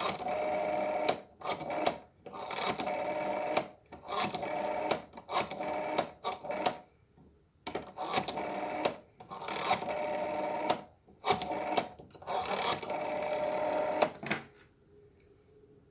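Rotary dial of a Western Electric 554 wall phone being dialed digit by digit, about ten times in a row. Each spin of the dial is followed by its whirring return and the clicks of the dial pulses. The digits are separated by short pauses while the next one is wound up.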